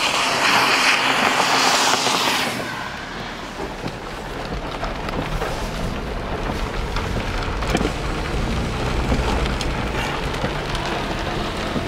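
A car passing on the wet road, with a loud hiss of tyre spray that fades about two and a half seconds in. After that comes a steady low rumble of car and road noise, with rain pattering.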